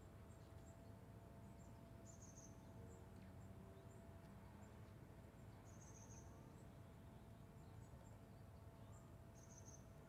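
Near silence: faint outdoor background with a few short, faint, very high-pitched chirps.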